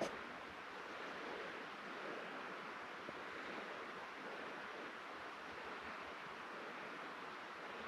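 Steady wind noise in the woods: an even rushing with no rhythm or tone, and a light click at the start.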